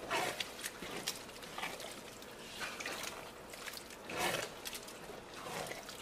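Cooking spoon stirring washed rice through a thick tomato stew in a large metal pot: a series of irregular wet squelching and scraping strokes, about six in all.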